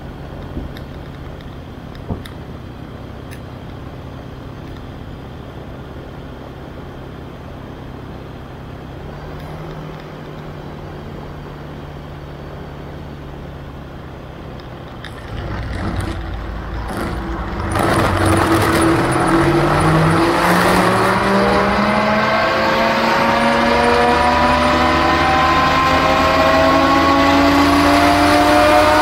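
AutoGyro MTOsport gyroplane's engine idling steadily, then opened up about fifteen seconds in, with a sharp rise in loudness and a wash of wind and propeller noise about three seconds later. From there its tones rise steadily in pitch as the revs climb while the rotor is spun up for take-off.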